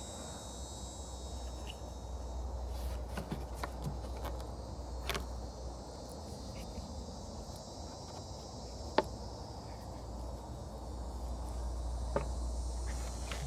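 Scattered sharp clicks and taps from handling headlight parts while swapping the bulbs, the loudest about nine seconds in. Under them runs a steady faint high chirring of insects and a low hum.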